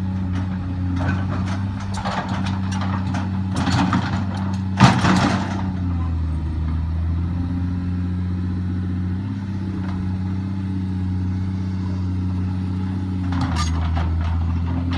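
Volvo excavator's diesel engine running steadily, with metallic clanks and knocks over the first several seconds, the loudest about five seconds in, and a few more near the end.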